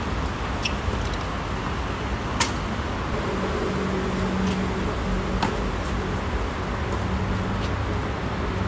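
Sharp pops of a tennis ball struck by rackets and bouncing on a hard court, several spread through, over a steady city hum. A droning mechanical tone joins about three seconds in.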